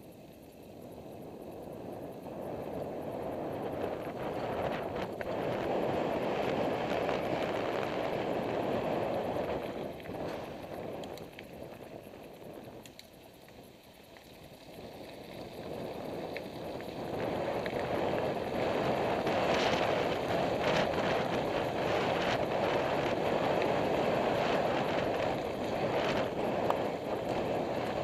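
Wind rushing over the camera microphone while riding a mountain bike, with tyres rolling over a dirt forest track and sharp rattles from bumps. The rush dips about halfway through, then builds again.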